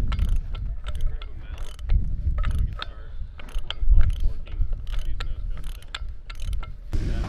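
Threaded metal fitting being screwed by hand onto the end of a bomb body: a run of sharp, irregular metallic clicks and ratchet-like scrapes over a low rumble.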